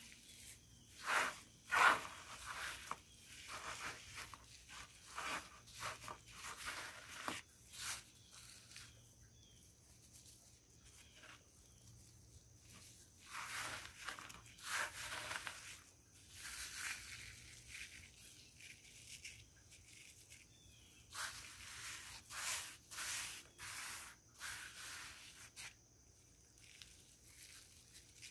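Naphthalene mothballs being crushed and ground to powder in gloved hands: irregular soft crunches and gritty rubbing in clusters, loudest about two seconds in.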